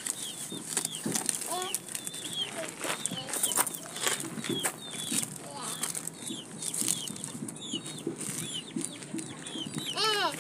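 Scissors snipping and crinkling through the plastic-wrapped, taped package, with birds chirping over and over and a louder clucking call near the end.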